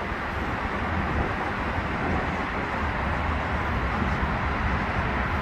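Steady outdoor city background noise: an even hiss with a low rumble underneath, like distant traffic, with no distinct events.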